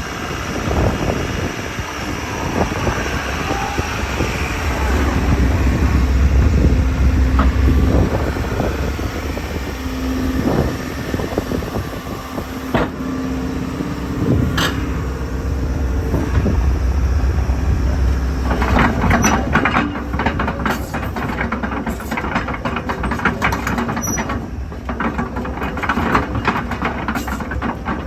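JCB JS160LC tracked excavator running, its diesel engine droning and swelling twice under load with a steady whine. From about two-thirds of the way in, rapid metallic clanks and knocks join in.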